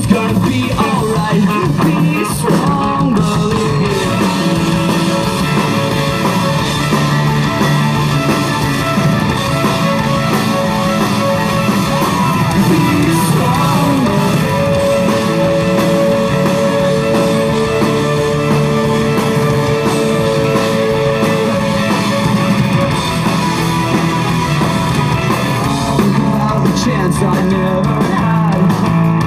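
Rock band playing live: electric guitars and drums, with a long held note from about halfway through.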